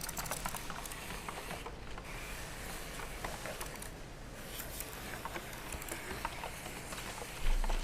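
Irregular light clicking and tapping of small hard objects being handled, with a dull thump near the end.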